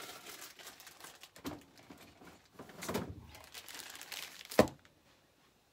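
Rustling and crinkling of things being handled on a work table, with one sharp knock about four and a half seconds in.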